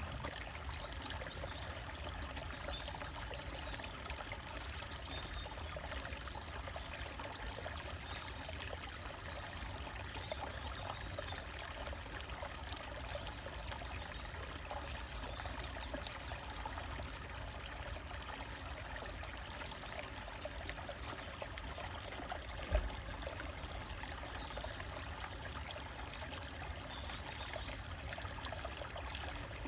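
Small forest stream trickling and splashing over rocks, a steady rush of water, with one brief low thump about three-quarters of the way through.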